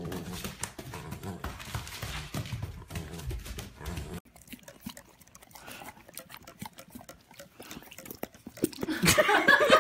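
A dog growling low and rough as it tugs at a plush toy, for about four seconds. Then quieter scattered clicks, and near the end a louder voice begins.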